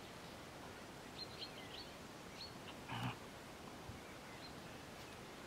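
Border collies at play, with one short dog vocal sound about three seconds in, over a faint steady outdoor hiss. Small birds chirp high and briefly in the background during the first half.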